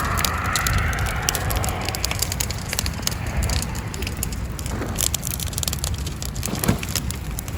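Burning brush pile crackling and popping, with many sharp, irregular snaps.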